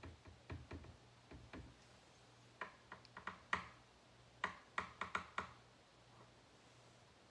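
Light clicks and taps in three short clusters over a faint steady hum.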